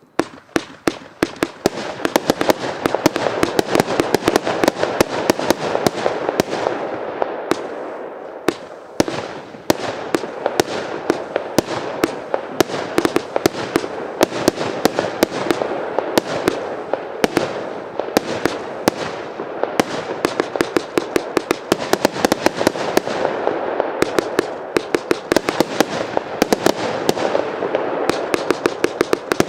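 Evolution Fireworks 'Britannia' firework barrage going off: it starts suddenly and fires many sharp shots a second without a break. The firing thins briefly about a quarter of the way in.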